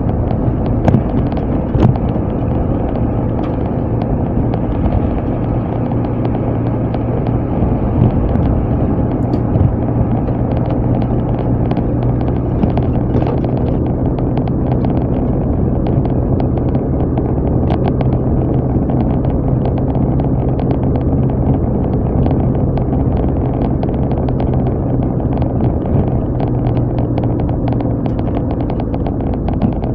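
Car on the move: a steady engine drone and road noise, with many small clicks and rattles throughout.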